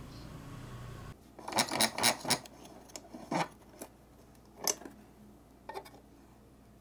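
A low drill-press motor hum for about the first second, which then stops. Then light metallic clinks and clicks, a quick cluster and then single ones a second or so apart, as an aluminium mini T-track is clamped in a steel bench vise and a tap wrench with an M6 tap is set to it.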